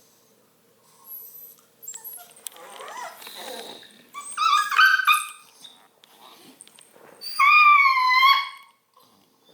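Redbone coonhound puppy whining: a run of short high cries about four seconds in, then one long wavering whine about seven seconds in, with some rustling of movement before them.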